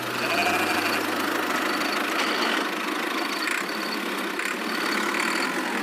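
An engine running steadily, with a noisy rattle.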